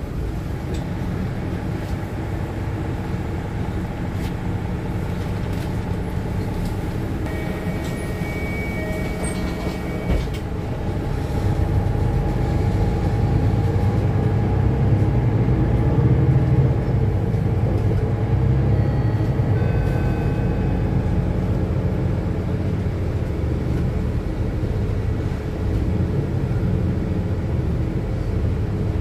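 Cabin noise of a Mercedes-Benz Citaro city bus on the move: its diesel engine running and road rumble heard from inside the passenger saloon. The rumble grows louder about eleven seconds in and stays up for several seconds before easing back.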